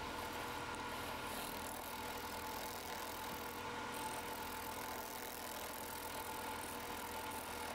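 Wood lathe running with a steady tone while a turning gouge cuts a spinning blank of dry, punky, worm-eaten spalted wood, giving a continuous rough hiss of shavings.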